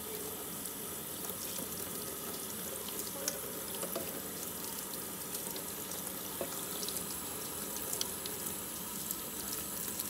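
Kitchen tap running steadily into a stainless steel sink while a plastic vacuum cleaner dust bin is rinsed under the stream, with a few light knocks as it is handled.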